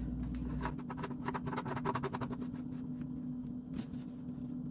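Black plastic adjustable IKEA cabinet leg being screwed down by hand: a rapid run of small clicks and scrapes from the plastic threads, thinning out after about two seconds, over a steady low hum.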